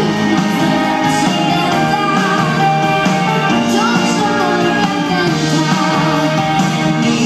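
Live band playing a pop song with a woman singing lead over drums, guitar and keyboards, heard from the audience in a concert hall.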